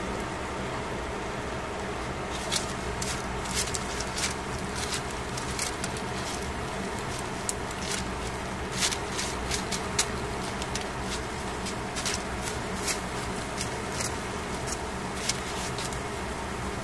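Tongs clicking and tapping against a foil-lined grill tray as raw fish pieces are moved and arranged: scattered sharp clicks, irregular and a few a second at most. They start a couple of seconds in, over a steady mechanical hum.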